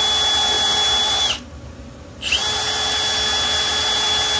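Cordless drill spinning a wire wheel brush against a fresh weld on a steel bracket: a steady high motor whine with a scraping hiss, cleaning off the weld. It spins down a little over a second in and spins up again about a second later.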